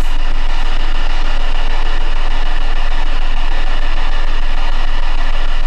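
Spirit box radio scanner sweeping through stations: loud, steady radio static hiss with a low hum underneath.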